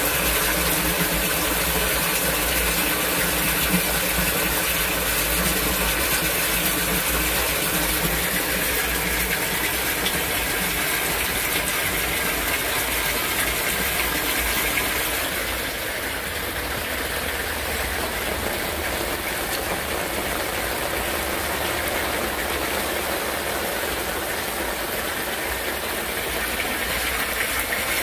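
Torrential rain and rushing water with a steady mechanical hum from a sump pump running in its lift station. The sound changes and drops slightly about halfway through.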